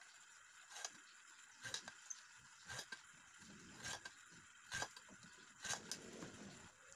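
Faint rhythmic scraping of a hand tool against a slot cut in aluminium square tubing. There are about six short, sharp strokes, roughly one a second.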